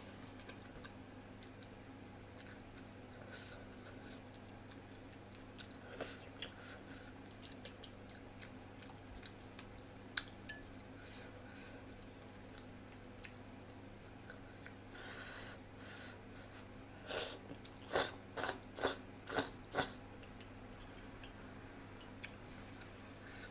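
Close-up chewing of instant ramen noodles: wet mouth clicks and smacks. Near the end comes a run of about five louder eating sounds, roughly half a second apart.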